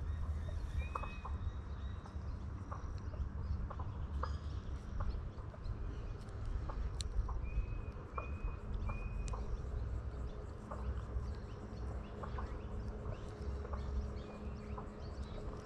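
Outdoor pond-side ambience: birds give short high calls, with three brief notes in quick succession about eight seconds in. Beneath them are scattered faint clicks and a steady low rumble.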